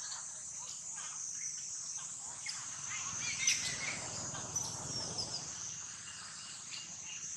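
A steady high-pitched insect chorus drones throughout, with a few short high chirps around the middle.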